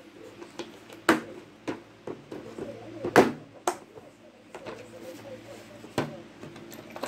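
Sharp knocks and clicks from a decorated metal tin being handled. There are about five of them, the loudest about three seconds in.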